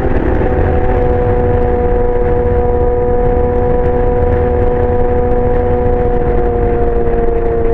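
2019 Yamaha R6's inline-four running through a LeoVince aftermarket exhaust at steady, fairly high revs under way, the note sagging slightly as the bike holds speed, over a constant rushing noise.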